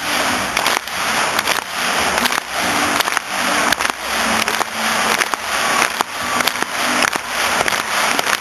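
Large arena crowd clapping, the applause swelling in an even beat a little under once a second, like clapping along in time. A few faint low musical notes sound underneath.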